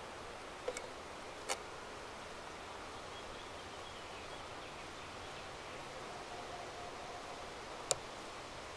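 Honeybees humming around an open hive, a quiet steady drone, with three light clicks from handling: two about a second in and one near the end.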